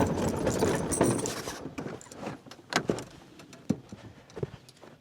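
Dense clattering and rattling that dies away about a second and a half in, then a few separate knocks and clicks.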